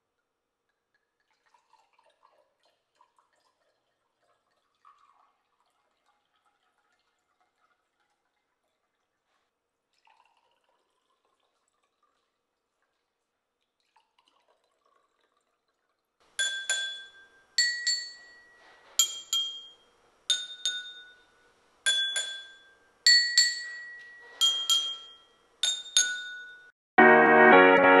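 Faint pouring and small glass clinks as water is poured into stemmed drinking glasses, then a spoon strikes the water-filled glasses eight times, about one a second and a half apart, each ringing with a clear tone at a different pitch, playing a short tune. Music starts in the last second.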